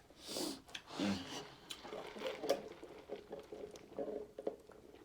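A person chewing food: irregular soft, wet mouth sounds with small clicks.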